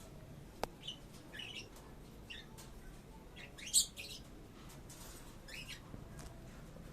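Small pet parrots chirping in short, scattered calls, one louder call about halfway through, with a single sharp click about half a second in.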